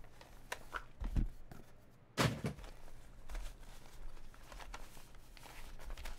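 Hands handling a rigid presentation box and a velvet drawstring pouch on a tabletop: light taps and rustles, with one dull thunk about two seconds in.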